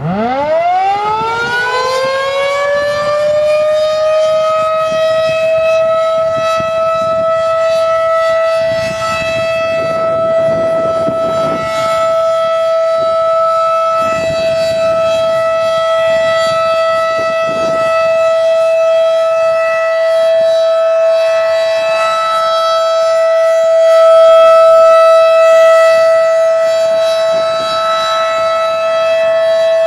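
Second-generation Federal Signal 2001 outdoor warning siren winding up from a low growl to its full single steady tone of about 690 Hz within the first few seconds, then holding it. The slowly rotating head makes the sound swell and fade, loudest a little past two-thirds of the way through.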